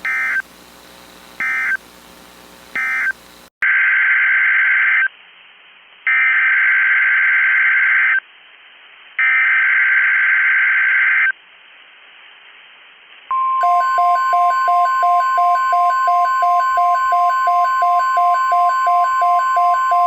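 Emergency Alert System data bursts: three short end-of-message screeches, then three longer SAME header screeches. About thirteen seconds in, a steady attention tone starts with a rapid pulsing beep over it, announcing a new alert.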